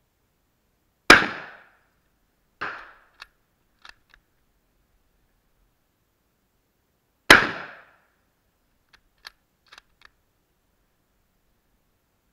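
Two rifle shots from a Yugoslav M24/47 Mauser bolt-action rifle in 7.92×57 mm, about six seconds apart, each a sharp crack that dies away over about half a second. A softer bang follows about a second and a half after the first shot, and a few light metallic clicks after each shot are the bolt being worked to chamber the next round.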